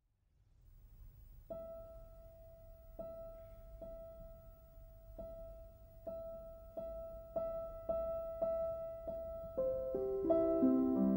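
Background piano music: a single high note struck over and over, the strikes coming gradually closer together, with more notes joining in a falling line near the end, over a faint low hum.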